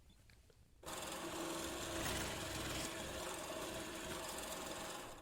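Power tool boring a 20 mm hole in a wooden disc: the motor starts a little under a second in, runs steadily while cutting, and stops abruptly at the end.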